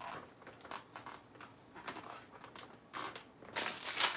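Salad of lettuce and croutons crackling and rustling as it is mixed by hand, in light scattered crackles that turn denser and louder about three and a half seconds in.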